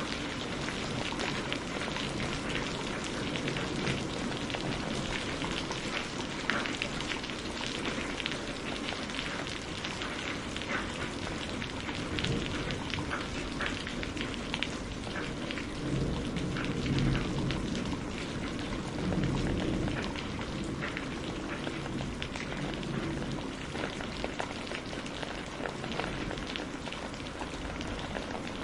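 Heavy rain falling steadily, a dense hiss with many sharp individual drop hits. Low rumbles of thunder swell twice a little past the middle.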